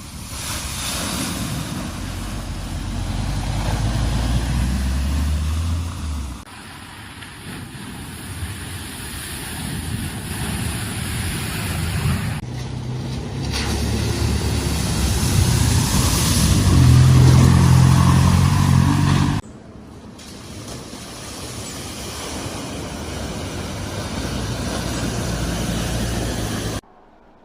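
Cars driving one after another through flood water at a ford, engines running under load. It comes in four separate passes that each cut off suddenly, and the loudest and heaviest engine note is in the third pass, past halfway.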